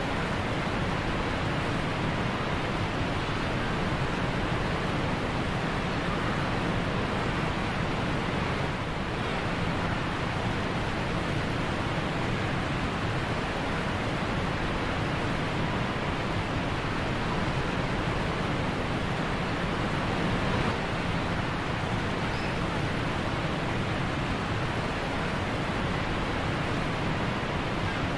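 Waterfall sound effect: a steady, even rush of falling water.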